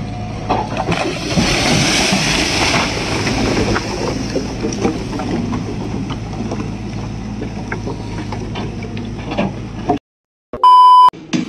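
A machine engine keeps running while a loaded timber truck overturns and its load of long poles spills and clatters down the slope, with a louder rushing crash about one to three seconds in. Near the end the sound cuts out and a short electronic beep follows.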